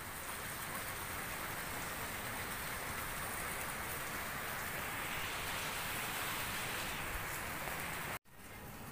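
Steady rain falling, an even dense hiss, which cuts off abruptly near the end.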